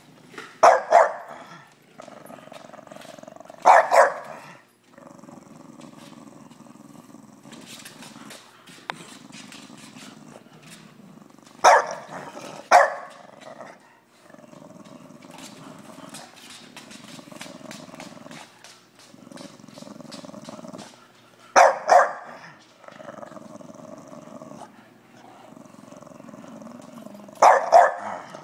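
An annoyed English bulldog giving short, loud barks every few seconds, some in quick pairs. Between the barks she keeps up a steady low growling grumble.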